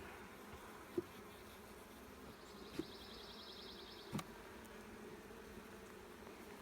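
Honeybees buzzing steadily around an open hive, a low even hum. A few faint knocks, and a brief high rapid trill in the middle.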